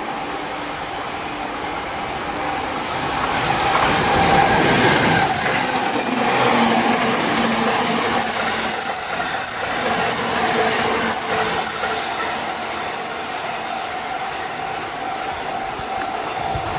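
JR East E257 series electric limited express train passing close by, its wheels clattering over the rail joints with a steady whine. It grows loudest about four seconds in as the front of the train draws level.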